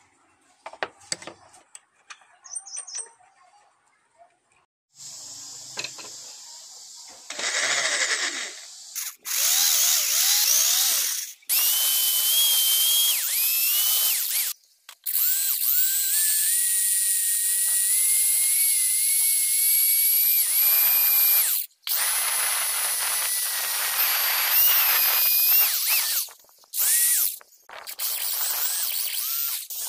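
Power drill boring holes through a small brass block, the bit cutting with a high whine in several runs that stop abruptly. A few light clicks of the block being handled come first.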